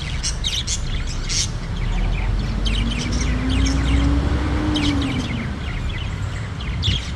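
Caged budgerigars chirping: many short, separate high chirps and chatter. A low drone rises and then falls in pitch between about two and five and a half seconds in.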